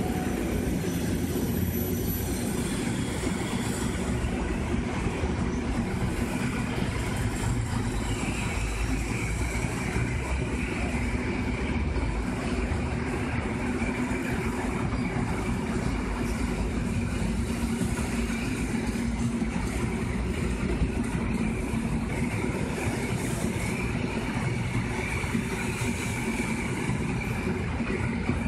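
Electric multiple unit train rolling along a station platform: a steady rumble of wheels on the track, with a faint high steady tone setting in about eight seconds in.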